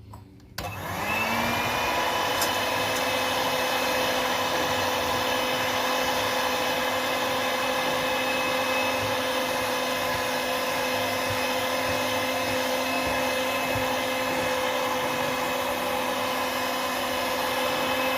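Electric cake mixer switched on about half a second in, its motor spinning up over a second and then running steadily at low speed while beating flour into whipped-egg sponge cake batter.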